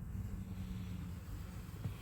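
Wind rumbling steadily on the microphone in strong gusty wind, a low rumble with no other clear sound.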